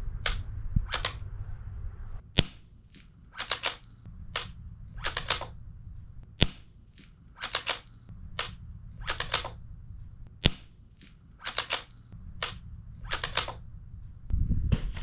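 Suppressed Savage Mark II FV-SR bolt-action .22 rifle firing subsonic rounds through a Sig Sauer SRD22X suppressor. There are three sharp shots about four seconds apart, each followed by a run of metallic clicks as the bolt is worked to chamber the next round.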